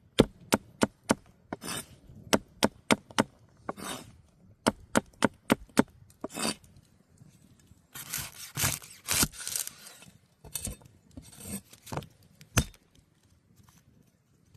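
Knife chopping on a wooden cutting board in quick runs of sharp strokes, about three to four a second, followed after about eight seconds by scraping and rustling.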